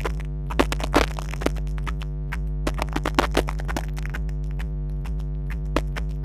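Fireworks shells bursting, with irregular sharp bangs and crackles, over steady synthesizer music.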